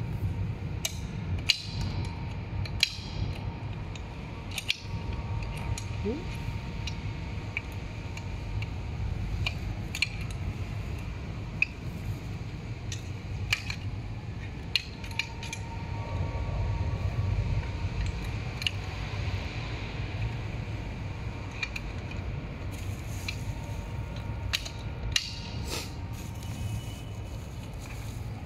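Metal clinks and taps from hand tools and hardware as an Allen key works the pivot bolt of an electric scooter's folding mechanism. About a dozen irregular sharp clicks sound over a steady low hum.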